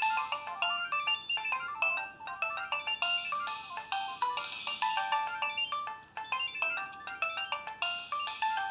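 A Nokia 6225 mobile phone playing one of its preloaded ringtones through its small loudspeaker. It is a quick, bright synthesized melody of short notes, several sounding at once, thin with no bass. A busier phrase comes round about every five seconds.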